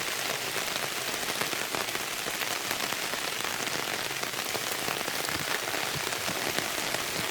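Heavy monsoon rain falling steadily, with countless individual drop impacts.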